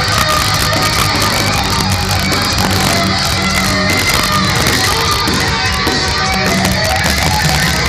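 Heavy metal band playing live: distorted electric guitars, bass and drums with cymbals, loud and dense. It is a crowd recording with poor, muddy sound.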